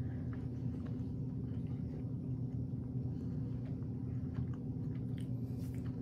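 People quietly chewing a caramel-like candy, with faint mouth clicks over a steady low hum.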